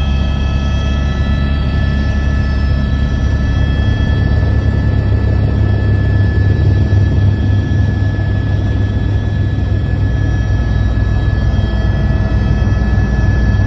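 Helicopter in flight: a steady, loud low drone of rotor and engine, with thin steady high tones over it.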